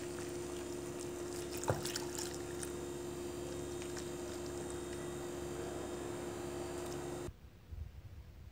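A whisk stirring a wet semolina-and-flour batter in a glass bowl, a soft wet swishing with a few light clicks against the bowl, over a steady low hum. Everything cuts off suddenly about seven seconds in.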